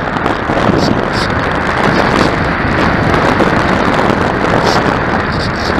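Loud, steady rushing of wind buffeting the microphone.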